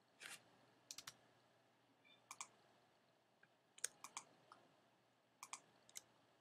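Faint, scattered clicks of a computer mouse and keyboard, some in quick pairs, over near silence.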